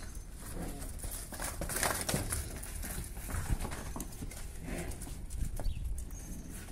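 Cattle walking about a pen, irregular hoof steps and scuffs on a packed-dirt floor.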